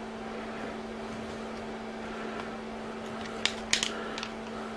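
Steady low hum of room background, with a few light clicks and rattles about three and a half seconds in as the motor's wire leads and gold bullet connectors are picked up.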